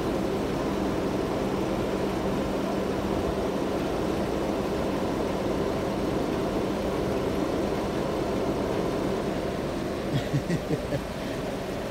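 Steady hum of an idling engine with a constant low tone. About ten seconds in, four or five brief low thumps.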